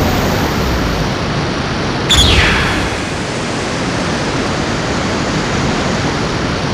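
Steady, loud rushing hiss of noise. About two seconds in comes a sudden hit, followed by a falling whistle.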